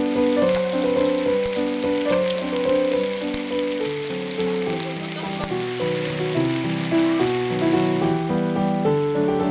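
Pork and garlic sizzling in a metal tray, a dense high crackle of spattering fat, under background music of held melodic notes.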